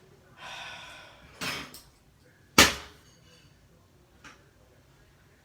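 A short scrape and a knock, then one loud, sharp smack about two and a half seconds in, as a part from a stripped smoke alarm is struck hard enough to bend it; a faint click follows.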